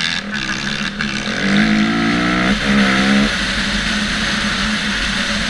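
Dirt bike engine accelerating hard, its pitch climbing, a brief break for a gear shift about two and a half seconds in, then climbing again before settling into a steady run under a rushing noise.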